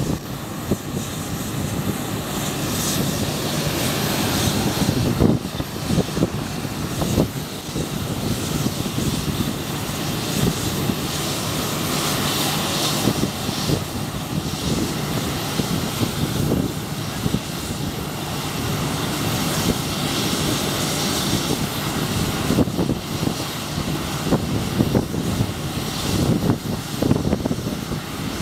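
A Boeing 737's twin jet engines running at low taxi power close by, a steady low rumble with gusty surges of noise as the plane lines up for takeoff.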